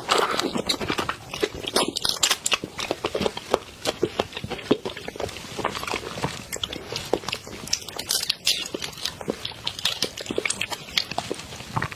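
Close-miked crackling and snapping of large prawn shells as they are peeled apart by hand, mixed with bites and chewing.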